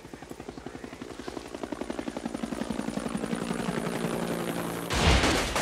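Helicopter rotor chopping in a fast, even beat, growing steadily louder as it approaches, until a sudden loud crash near the end.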